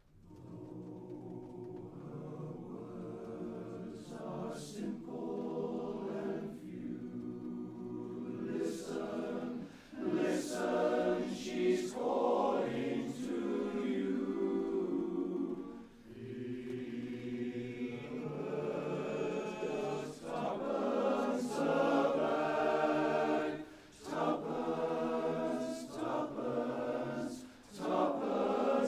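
A male-voice chorus of about 44 singers singing a cappella in close harmony. The singing enters softly right at the start and swells, with short breaks for breath a few times.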